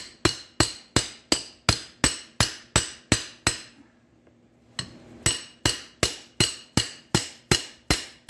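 Hammer striking a short length of steel pipe used as a seal driver, tapping a rear oil seal into a transmission tailhousing: about three sharp metallic blows a second, in two runs of about ten with a pause of about a second between them.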